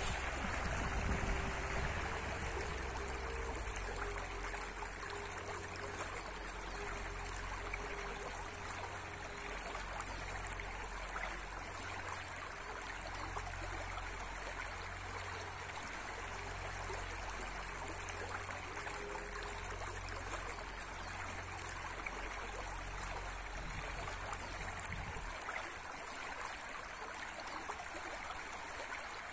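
A fast, shallow riffle of a river rushing steadily over stones. A low rumble underneath drops away about 25 seconds in.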